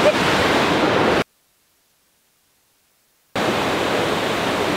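Steady rush of floodwater pouring through opened dam gates and churning downstream. A little over a second in, it cuts to about two seconds of dead silence, then the rushing resumes.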